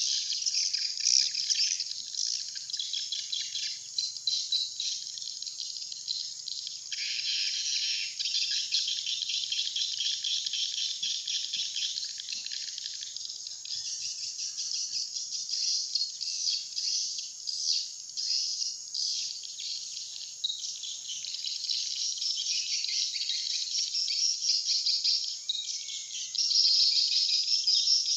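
Swiftlet lure call: dense, continuous high-pitched twittering and chirping of edible-nest swiftlets, a recording played to draw swiftlets into a nesting house. It gets louder near the end.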